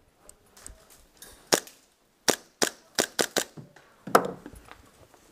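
Airsoft guns firing single shots in close-quarters play: about half a dozen sharp cracks at uneven intervals, then a louder crack about four seconds in.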